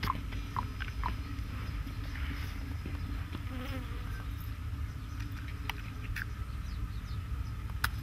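Flies buzzing close by, one passing near about three and a half seconds in, over a steady low rumble, with a few short clicks and scuffs from the plough and feet in loose, dry soil.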